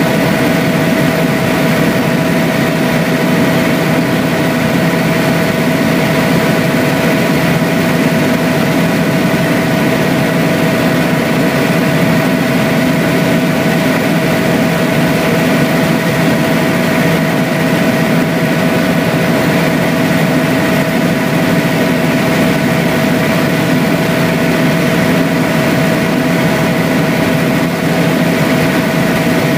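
Helicopter in forward flight heard from inside the cabin: a steady, loud drone of engine and rotors with a constant high whine over it, unchanging throughout.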